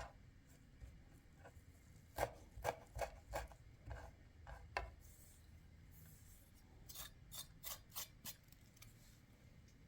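Food preparation sounds: a kitchen utensil tapping and scraping, about seven sharp taps in the first half, then a quicker run of about six lighter ticks near the end.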